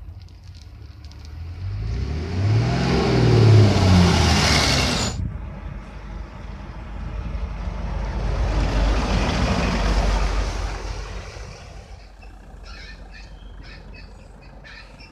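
A vintage Saviem S53 coach driving past, its engine note rising as it nears and falling as it goes by, then cutting off suddenly about five seconds in. A second pass-by follows, swelling to a loud rush of engine and tyres and then fading away.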